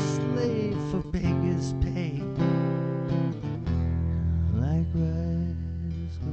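Background music: strummed acoustic guitar in a folk-style song.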